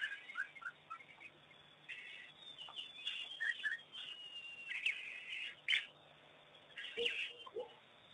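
Many short, high chirps and whistled calls from animals, irregular and overlapping, with a few lower, shorter calls near the end.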